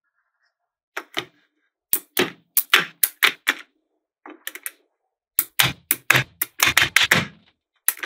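Small neodymium magnetic balls clicking as strips of them are set down and snap together, in quick clusters of sharp clicks with short pauses between.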